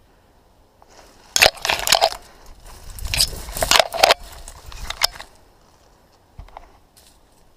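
Dry twigs, brambles and leaves crackling and crunching as someone pushes through dense woodland undergrowth. The noise comes in loud, irregular bursts lasting about four seconds, starting about a second in, then dies down to a few faint snaps.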